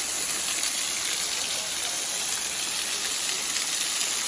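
Steady rush of falling and flowing waterfall water.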